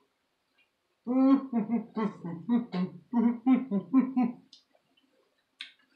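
A person humming a quick run of about ten short notes with the mouth closed, starting about a second in and stopping after three or four seconds.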